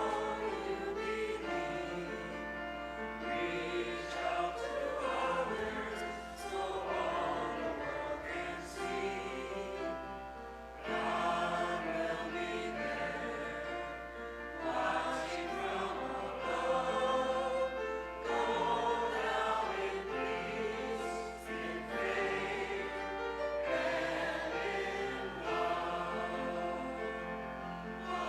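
Choral church music, sustained sung notes moving from chord to chord, over a steady low hum.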